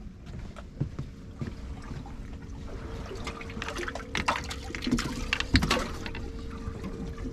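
Small-boat water sounds: water trickling and splashing at the side of the hull, with scattered small clicks and knocks. A faint steady hum joins about halfway through.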